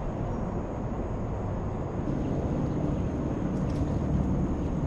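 Steady low rumbling outdoor background noise, with a faint, thin, high-pitched whine held steady above it.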